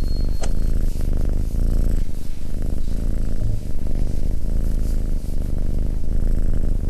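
Domestic cat purring steadily: a continuous low rumble with a fast, even pulse.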